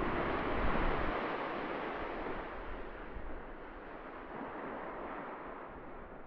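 Seaside ambience of wind and surf: a steady rushing noise that swells in the first second, then slowly fades.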